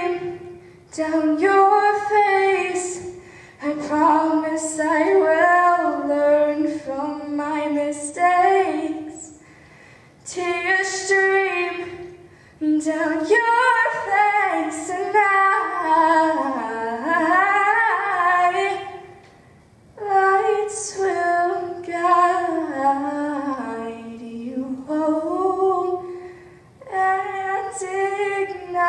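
A teenage girl singing solo into a microphone, in sung phrases of a few seconds each separated by brief pauses for breath.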